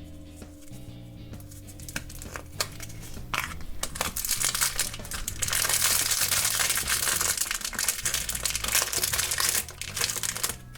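Plastic foil blind bag crinkling and rustling loudly as it is handled, starting about four seconds in, after a few light clicks. Background music plays underneath.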